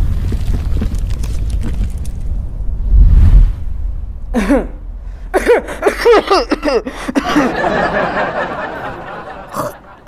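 A deep rumbling boom dies away over the first few seconds. About four seconds in comes a run of chuckling laughter, followed by a softer hissing noise.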